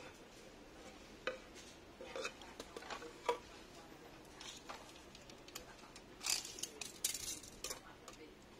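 Wooden plates of sawo and sono wood being handled and set down on a rattan placemat: scattered light taps and clicks of wood on wood. A brighter cluster of clicks comes about six seconds in, as a steel tape measure is pulled out across a plate.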